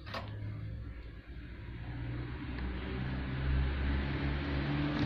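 A motor running with a steady hum, growing gradually louder.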